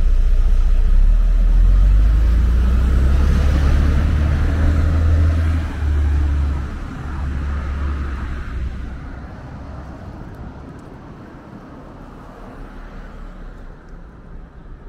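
City bus engine running loudly with a deep rumble, fading away by about nine seconds in, leaving quieter street traffic noise.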